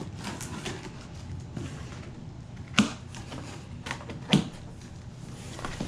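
Cardboard shipping box being opened: a knife slicing its packing tape, then the flaps pulled apart with crinkling and scraping cardboard. Two sharp snaps stand out, a second and a half apart, near the middle.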